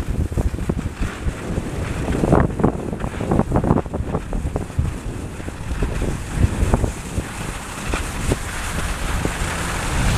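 Wind buffeting the microphone of a camera carried down a ski slope at speed: a low, gusty rumble with irregular jolts, over the rushing scrape of sliding on groomed snow.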